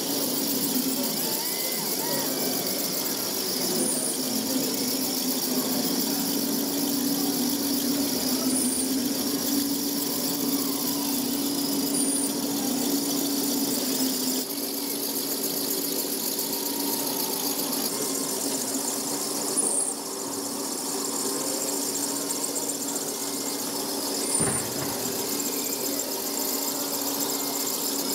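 Radio-controlled model construction machinery running: the electric drive and hydraulic pump of a model Liebherr 634 crawler loader working in soil, together with a running model conveyor, giving a steady high whine over a hum. A short high chirp repeats about every four seconds.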